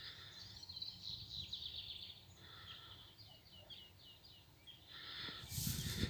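Small songbirds chirping in a run of quick high notes. Near the end, footsteps on the path start up.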